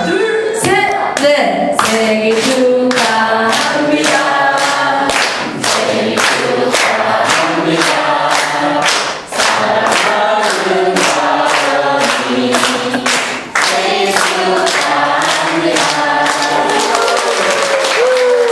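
A group of people singing together while clapping in time, about two claps a second, with brief breaks in the clapping around the middle.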